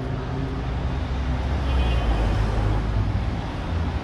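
A motor vehicle's engine running close by in street traffic, its low rumble growing louder toward the middle and easing off again.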